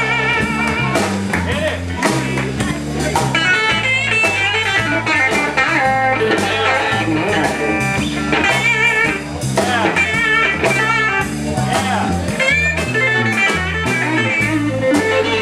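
A blues band playing a shuffle live: an electric guitar lead with bent, wavering notes over electric bass and drum kit.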